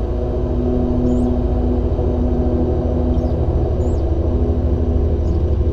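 Steady drone of a small twin-turboprop airliner's engines and propellers heard inside the cockpit, with a low pulsing beat under a few steady hums.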